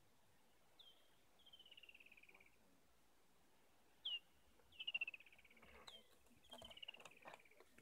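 A bird calling three times, each call a short high note dropping sharply, then a longer trill sliding slowly down in pitch. A few soft clicks and rustles come in the second half.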